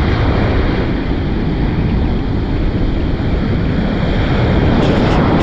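Surf breaking and washing up the sand, with wind buffeting the microphone in a steady low rumble.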